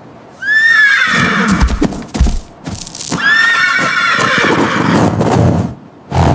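Horse neighing twice: one long whinny starting about half a second in, and a second starting about three seconds in.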